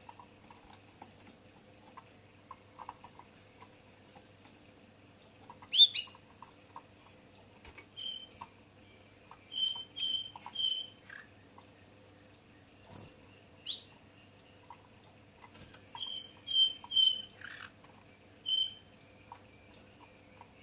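A small caged finch giving short single chirps, now and then two or three in quick succession, with a couple of sweeping call notes among them. Light taps and scrapes come from its feet on the perches and cage as it hops about.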